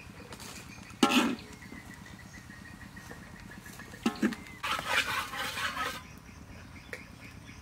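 A metal spatula scraping and scooping fried rice on a metal tray, with two short loud clucks from a chicken, about a second in and about four seconds in.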